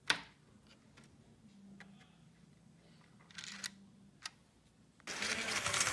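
A sharp click right at the start, then a few faint ticks and a short hiss. A loud rustling and scraping starts about five seconds in. The sounds are consistent with a hand handling the track and the phone around a model-railroad turnout.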